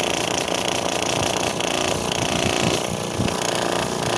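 AirSep Intensity 10 oxygen concentrator's compressor running under load with its air outlet blocked, with a rapid knocking (golpeteo) mixed into its steady running noise: the sign of something loose inside the compressor.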